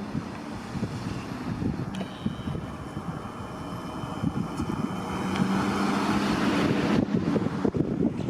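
Road vehicle running nearby, a steady low engine hum with tyre noise that grows louder over several seconds and cuts off suddenly near the end.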